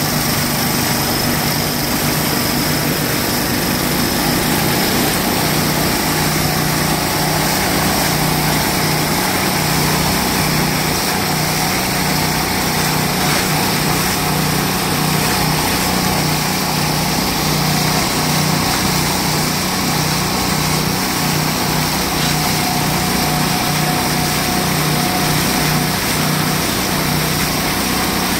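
Small engine on a hydraulic reverse-flow well drill running steadily, with muddy water and drill cuttings gushing out of the drill head and splashing onto the ground.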